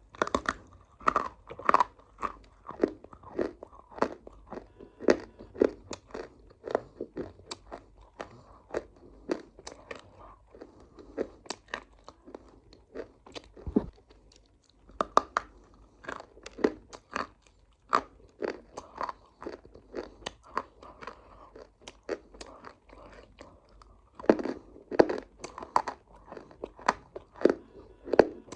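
Close-up chewing of crunchy food: a steady run of crisp crunches, a few a second, with louder bites now and then.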